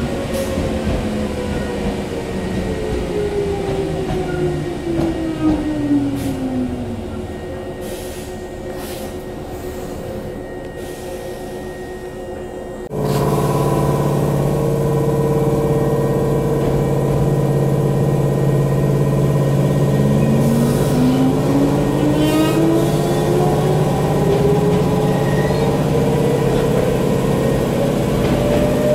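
Former Hankyu electric train, heard from on board. Its motor whine falls in pitch as it slows to a stop. About halfway through, a louder steady hum cuts in suddenly, and in the last third a rising whine sets in as the train accelerates away.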